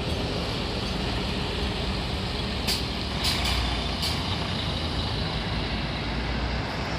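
Bus engine running with a steady low rumble, with four short sharp hisses of air from the air brakes a little under halfway through.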